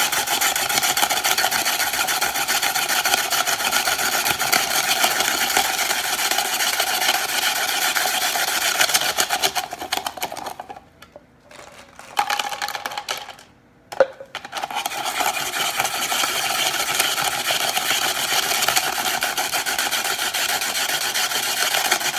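Hand-cranked Tupperware Ice Shaver grinding ice cubes into fine snow-cone powder: a continuous rasping crunch of ice against the turning blades. It stops for a few seconds about halfway, with a brief burst and a single knock while more ice is poured into the top, then resumes.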